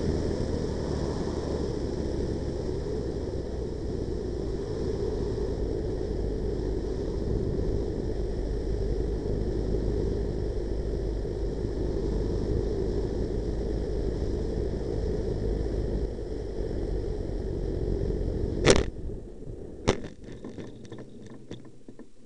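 Onboard sound of a large radio-controlled Pilatus PC-6 Porter model in flight: a steady rush of wind and propeller noise. About nineteen seconds in come two sharp knocks about a second apart as the model touches down on grass, and the noise then falls away to a much lower level.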